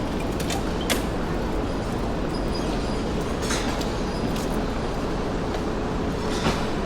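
Steady low rumble of heavy city street traffic, with a few sharp clicks or clanks standing out from it.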